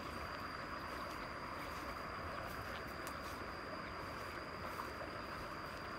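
Steady rice-field ambience: insects calling, with one continuous high-pitched tone over an even hiss.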